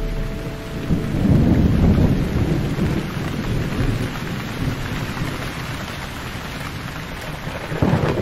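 Steady rain with low rolls of thunder, swelling about a second in and again near the end.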